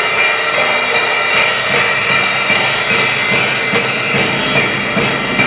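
Children's percussion group playing a steady beat of about two and a half strokes a second, with cymbals ringing over it.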